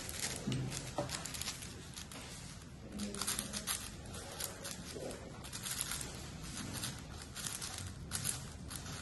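A 6x6 speed cube being turned rapidly by hand: quick runs of plastic clicking and rattling as its layers turn, coming in bursts with short lulls between them.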